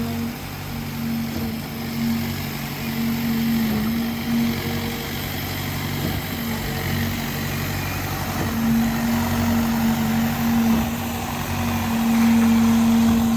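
Engine of the concrete-pour machinery running steadily with a droning hum, getting somewhat louder near the end.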